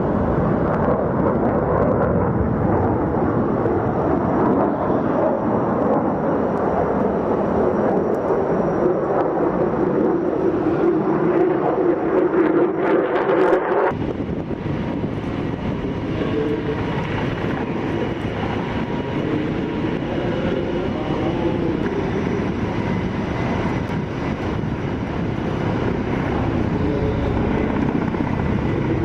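Aircraft engine noise, loud and steady. About halfway through it cuts off sharply and gives way to a somewhat quieter, different engine noise.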